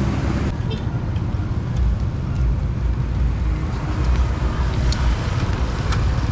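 Steady low outdoor rumble with a few faint clicks; the higher hiss drops off abruptly about half a second in.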